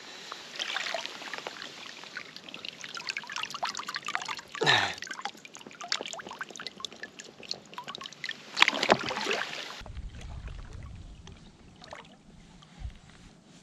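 Water splashing and trickling, with many small clicks and knocks; about ten seconds in it cuts off abruptly to a quieter low rumble.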